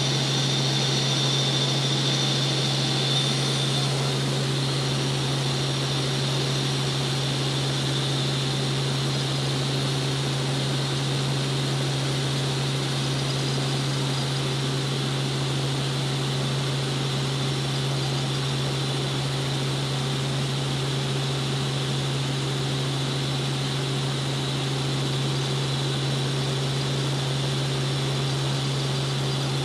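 Helicopter cabin noise in steady cruise: a constant low drone from the rotor and engine under a layer of rushing noise, with a thin high whine that eases a few seconds in.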